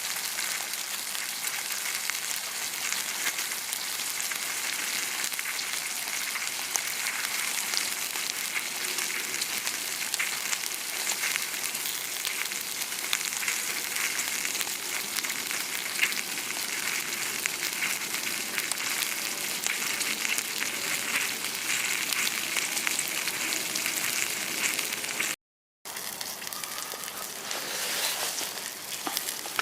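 Steak sizzling and spitting as it fries over a campfire, a steady hiss with small crackles, broken by a brief gap near the end.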